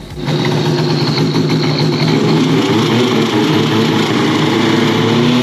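An engine running steadily, its pitch rising a little near the end.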